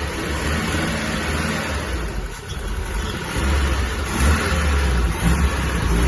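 A car engine running, getting louder about halfway through.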